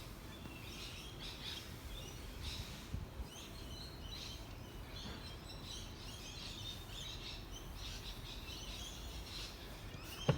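Faint birds chirping on and off over a low, steady background hum.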